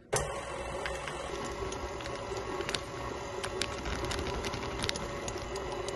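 Electric mixer running steadily, beating butter into buttercream frosting as powdered sugar is added, with a few light clicks.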